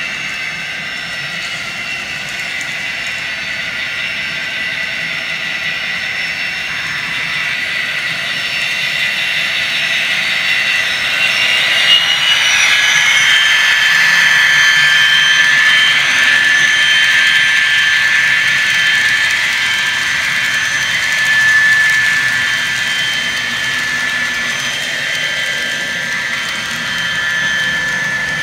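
Sound-equipped Intermountain N scale Burlington Northern SD40-2 model locomotive running with its freight train, playing its diesel engine sound through its small onboard speaker with a steady high whine. It grows louder as the train comes past the camera, loudest a little under halfway through.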